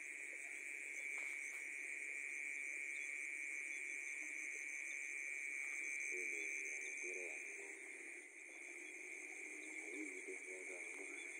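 Dense night chorus of frogs and insects: a continuous high-pitched trilling with a higher, fast-pulsing layer above it. Faint voices can be heard underneath in places.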